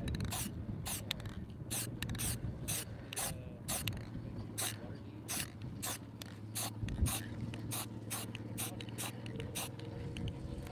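Aerosol spray paint can spraying in short, quick hissing bursts, about two a second, laying red paint through a stencil.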